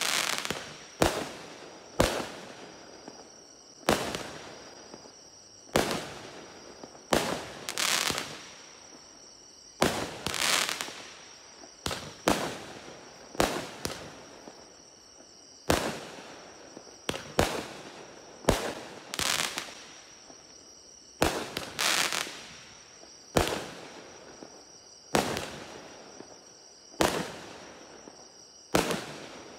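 A 36-shot, 0.8-inch-calibre consumer fireworks cake (battery) firing its shots in sequence, about one sharp bang a second at an uneven pace. Each bang is followed by a short fading crackle.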